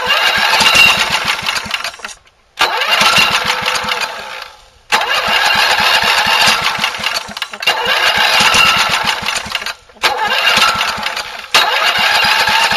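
1981 Toro Whirlwind push mower's small gasoline engine running on gas sprayed into its air intake from a can of chewing gum remover. The sound runs in stretches and cuts out briefly a few times.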